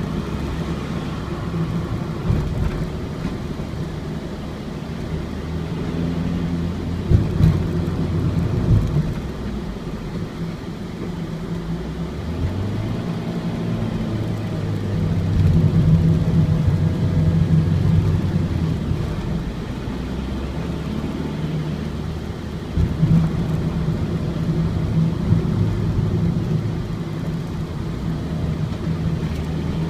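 Ford Transit's four-cylinder diesel engine running under way, heard from inside the cab, its note rising and falling with speed and load. A few short knocks come through from the road surface.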